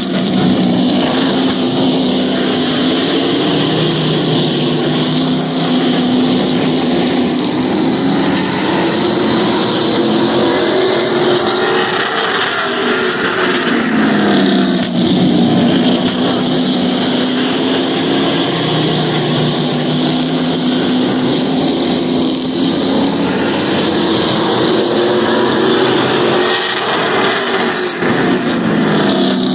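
Pack of Pro Truck race trucks running laps on a short oval, engines loud and continuous. Their pitch falls and climbs again several times as the field goes through the turns and back onto the straights.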